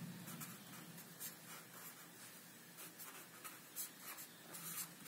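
Felt-tip pen writing on paper: faint, short scratchy strokes coming in quick runs as a formula is written out.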